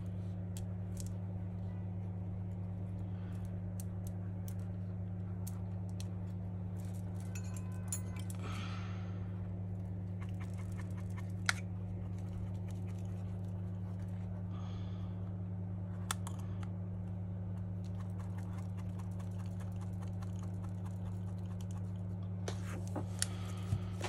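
A steady low hum, with scattered small clicks and taps as hands press a smartphone's screen into its frame. The sharpest click comes about eleven seconds in, and a few more come close together near the end.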